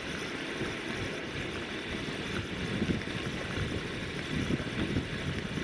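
Spinning reel being cranked steadily to bring in a hooked whiting, its soft winding whir over a steady low rumble.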